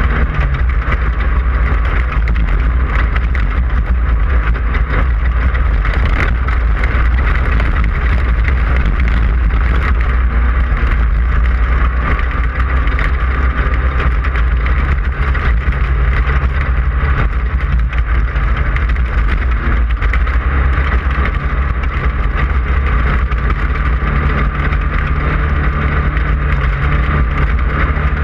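Air-cooled 1600 cc Volkswagen engine of a Class 5/1600 off-road race car running hard and steady under racing load, heard from on board with a heavy low rumble, its pitch shifting slightly with throttle.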